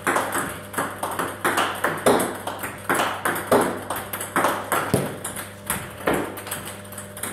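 A run of sharp strikes, irregular but about two a second, each ringing briefly.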